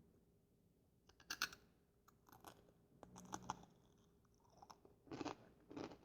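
Fritos corn chips being chewed close to the microphone: after a quiet first second, short irregular bursts of crunching with sharp crackles.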